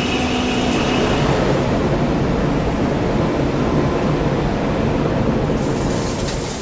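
Steady, loud rumble of heavy industrial machinery running. A steady whine stops about a second in.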